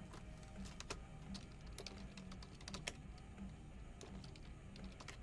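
Faint, irregular clicking of computer keyboard keys being typed, over a low steady hum.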